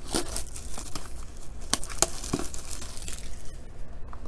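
Plastic shrink wrap being torn and crumpled off a cardboard trading-card blaster box: a run of crinkling with a few sharp crackles about two seconds in.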